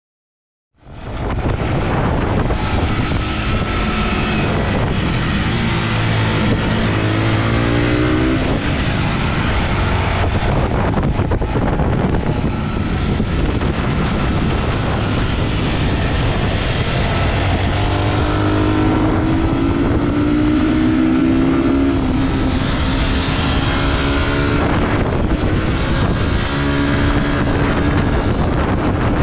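Onboard sound of a Yamaha YZF-R125's single-cylinder 125 cc four-stroke engine at speed on a track, its pitch climbing and dropping back again and again as the rider accelerates and shifts gears, over heavy wind rush on the camera microphone. It starts about a second in.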